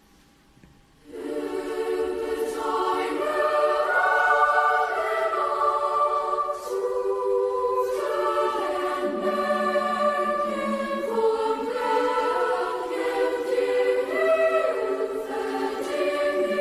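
Girls' choir singing in chords, entering together about a second in after near silence, with sustained notes that shift in pitch.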